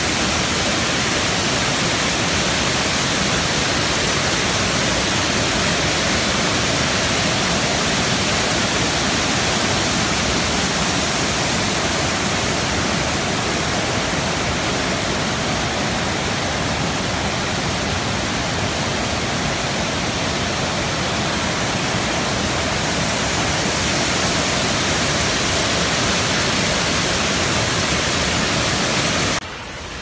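Wachirathan Waterfall in heavy rainy-season flow: loud, steady rushing of white water pouring over rock cascades. Shortly before the end the sound drops suddenly to a quieter level.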